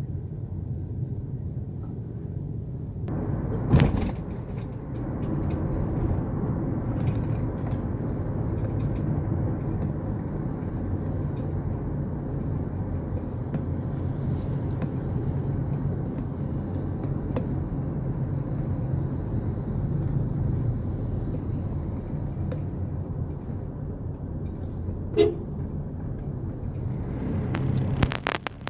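Engine and road noise heard from inside a car, a low steady rumble that grows fuller about three seconds in as the car pulls away from a standstill. A sharp knock sounds about four seconds in, and a shorter sharp sound near the end.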